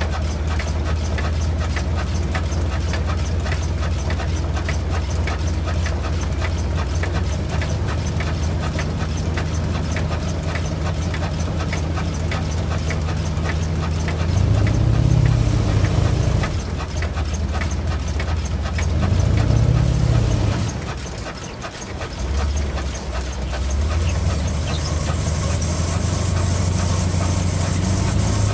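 Christoph & Unmack stationary engine running steadily with a fast, even beat while driving a band saw. Twice around the middle its note briefly swells and falls back. A high hiss joins near the end.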